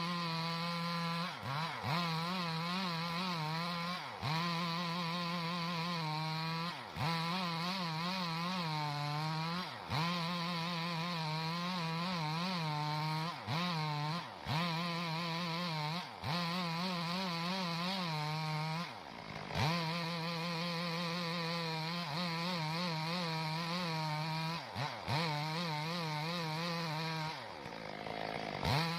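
Chainsaw cutting a log into planks. The engine runs steadily under load, its pitch dropping and picking up again every couple of seconds.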